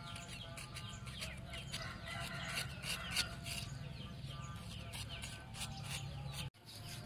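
Chickens clucking and chirping, over short repeated strokes of a knife blade scraping the skin off a boiled pig's tongue on a wooden chopping board. The sound drops out for an instant near the end.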